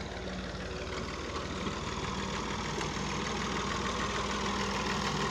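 Farm tractor's diesel engine running steadily while it drags a rear leveling blade through loose soil, its firing heard as a fast, even pulse. It grows slightly louder towards the end.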